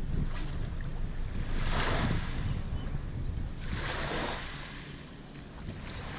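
Small waves washing in twice, a couple of seconds apart, over a steady low rumble of wind on the microphone.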